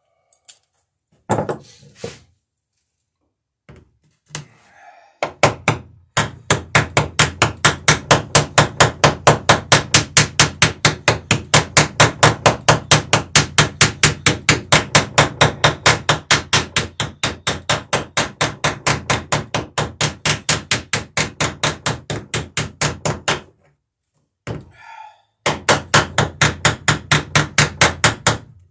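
Small hammer peening copper rivets on a wooden dory plank: quick, even taps at about four blows a second. A few separate knocks come first, then a long run, a short pause, and a shorter run near the end.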